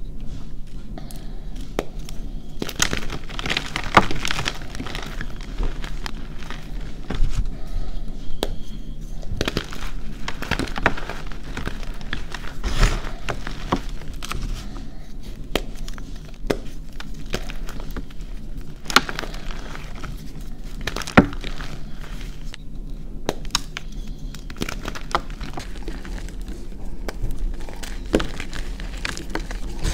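Reformed gym chalk blocks being crushed between the fingers: an irregular, continuous crunching and crackling as the pressed chalk crumbles to powder, with a few sharper snaps.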